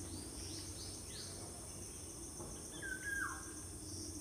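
Faint background of a steady high insect trill, with a few short falling bird chirps about a second in and again near three seconds, over a low steady hum.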